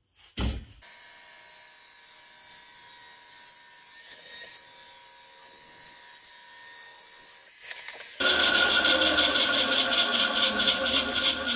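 A clear plastic sheet flaps briefly, then a bench bandsaw runs steadily. From about eight seconds in its blade cuts through the plastic sheet, much louder and with a fast, even rhythm.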